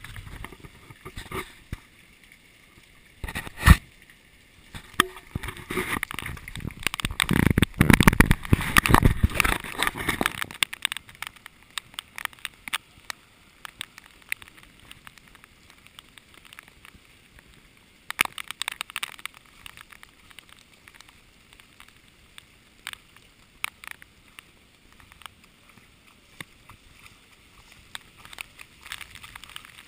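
Heavy rain, with drops striking the camera's waterproof housing as many scattered sharp taps. A loud rushing, rumbling noise builds up about five seconds in and dies away about ten seconds in.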